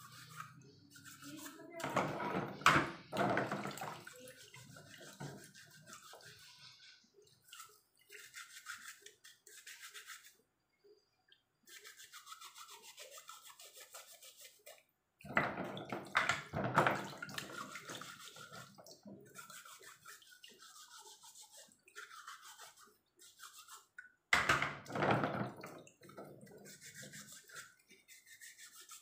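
A scouring pad scrubbing mussel shells in a basin of water: a rapid scratchy rubbing, with louder bursts about 2 s in, around the middle and near the end.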